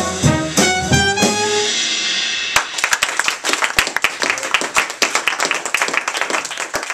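A small jazz combo of saxophone, piano, upright bass and drums plays its last notes and lets a final chord ring out. About two and a half seconds in, applause from a small audience breaks out and carries on.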